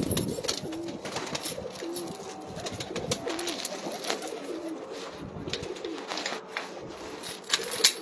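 Domestic pigeons cooing in a loft: short low coos repeated every second or so, over scattered sharp clicks and rustles.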